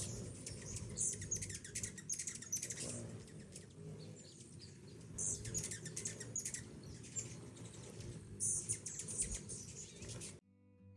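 Hummingbirds chirping: many short, high-pitched chips and squeaks in quick succession over a low steady rumble, cutting off just before the end.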